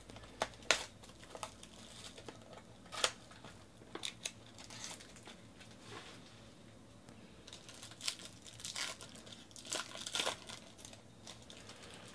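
A foil trading-card pack wrapper being torn open and crinkled by hand, in scattered sharp crackles with short pauses between them.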